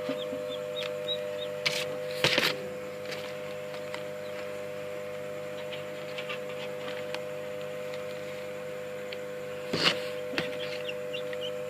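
Newly hatched chicks peeping faintly in a homemade egg incubator over a steady electrical hum, with a few sharp knocks about two seconds in and again near the end.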